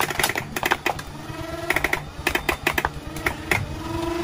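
Nerf blasters firing, a rapid clatter of clicks and dart shots coming in quick clusters, with short motor whines in between.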